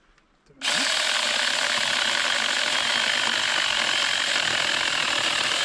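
AOSTOK 6-inch battery-powered mini chainsaw cutting through a soaking-wet log, starting suddenly about half a second in and running steadily under load.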